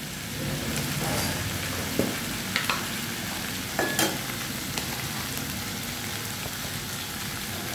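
Diced potatoes sizzling in oil in a metal kadai, with a few sharp clinks and scrapes of a metal utensil against the pan.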